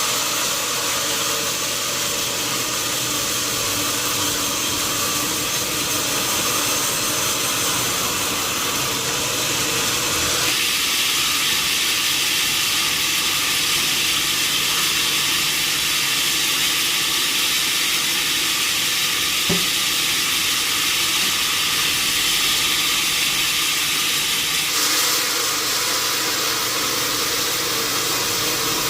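Sawmill saw running steadily through wadang wood, its noise growing harsher and higher-pitched from about ten seconds in until a few seconds before the end.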